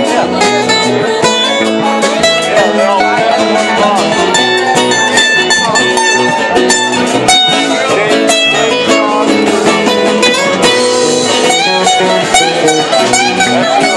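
Live band playing loudly, guitar over a steady drum beat, with no singing.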